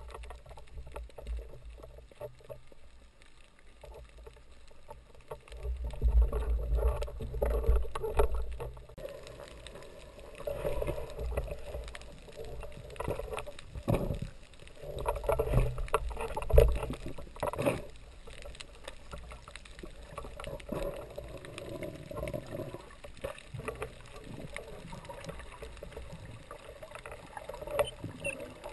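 Muffled underwater water noise picked up through a camera housing: water washing and sloshing with low rumbles, loudest about a quarter of the way in, and a few sharp knocks about halfway through.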